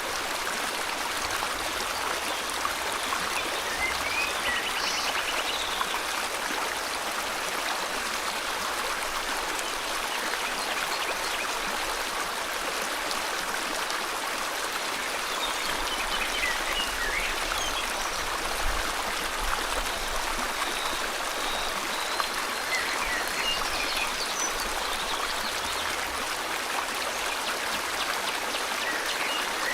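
River water flowing in a steady, even rush, with a few faint, short bird chirps and trills now and then.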